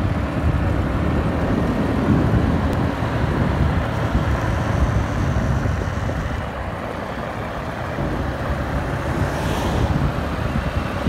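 Steady low rumble of a vehicle driving on a road: engine and road noise.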